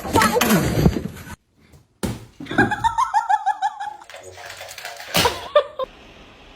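Laughter: a quick run of high, pitched 'ha-ha' notes, with other voice sounds around it and an abrupt break between short clips.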